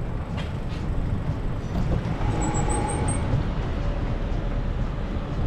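Steady low rumble of street traffic and wind, heard from a bicycle riding through city streets, with a few faint high chirps about halfway through.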